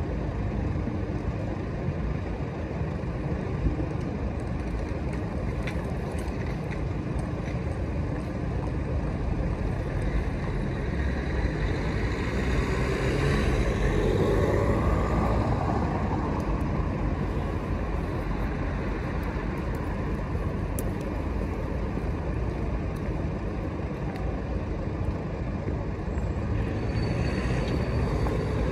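City street traffic: a steady low rumble of idling and passing cars, with one vehicle passing louder about halfway through, its pitch sweeping as it goes by.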